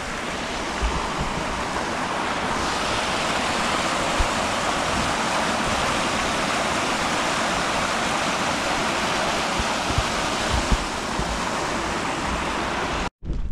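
Steady rush of flowing water, cutting off suddenly near the end.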